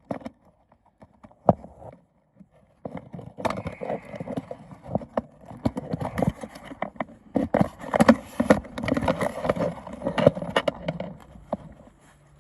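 Irregular clicking, knocking and rattling of the gear shifter assembly as its snap-fit catch is worked and pried loose. There are a couple of single clicks, then a busy run of knocks and scraping from about three seconds in.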